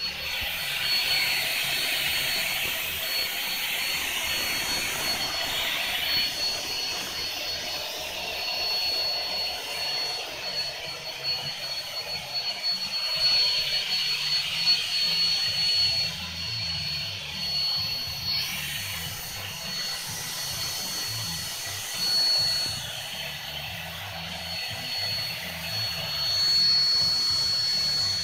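An electric air blower running steadily with a constant high motor whine, pushing air through a hose to fill a large thin-plastic inflatable whale. The plastic skin rustles and crinkles as it fills.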